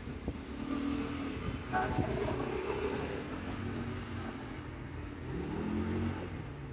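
Street traffic noise: a steady rumble of vehicles, with an engine rising in pitch as a vehicle speeds up about five seconds in.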